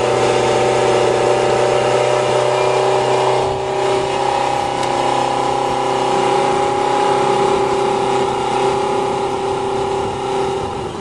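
Motorcycle engine of a homemade dune buggy running steadily, just started on squirts of starting fluid. Its note shifts and dips briefly about three and a half seconds in.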